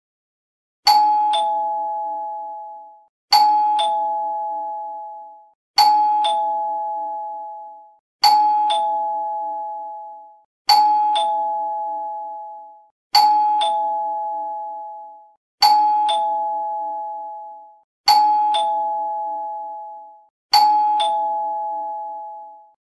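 Two-tone "ding-dong" doorbell chime sounding nine times in a row, about every two and a half seconds: a higher note, then a lower one, each dying away before the next.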